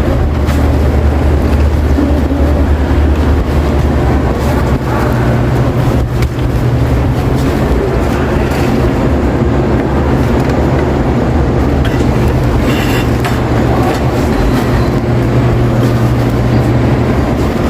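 Supermarket butcher-counter ambience: a steady low hum under an even wash of store noise, with a brief sharper, higher sound about two-thirds of the way through.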